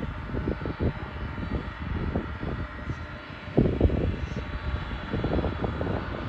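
Twin turbofan engines of a Boeing 767-300 freighter at power on its takeoff roll: a low, crackling rumble with thin steady whine tones above it, swelling louder about three and a half seconds in.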